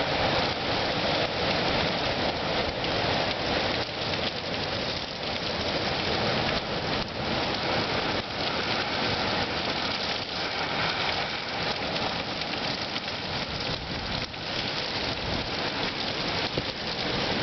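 Wind storm: a steady, dense rushing hiss of wind and rain.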